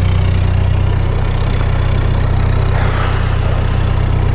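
Narrowboat's diesel engine running steadily at low revs, a low even hum.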